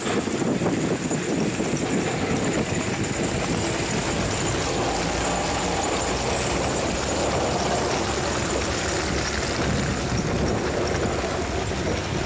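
Snow-clearing motor grader with chained tyres and a front plough blade working along a snowy road, its diesel engine running steadily under a continuous rough noise of tyres and blade on snow.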